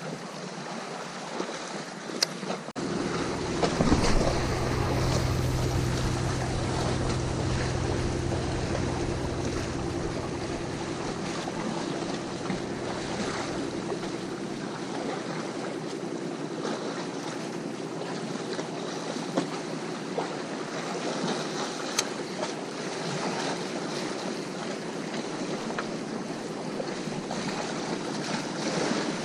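Sea waves washing at the shore with wind on the microphone. A steady low drone joins in about three seconds in.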